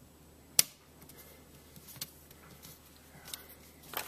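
A few sharp clicks and light clatter of small hard objects being handled; the loudest click comes about half a second in, with fainter ones spread through the rest.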